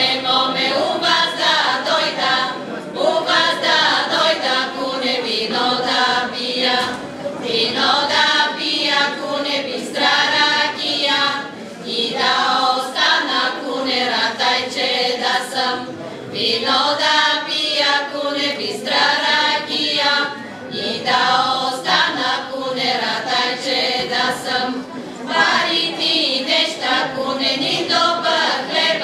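Women's folk choir singing a Vlach folk song a cappella, in phrases of a second or two with short breaths between.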